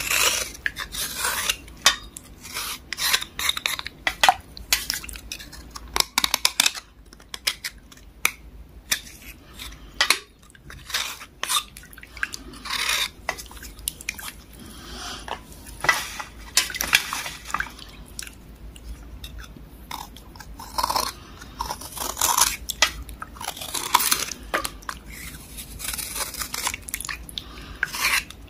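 A small knife scraping the softened outer layer off a water-soaked black block, in short irregular strokes, with the blade clinking against the bowl now and then. The scraping thins out for a few seconds just before the middle.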